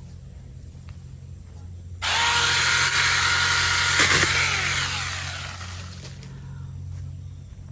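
SeeSii 6-inch battery-powered mini chainsaw starting suddenly at full speed about two seconds in, running with a steady whine, then released and winding down with a falling whine. A brief crack sounds just as it begins to slow.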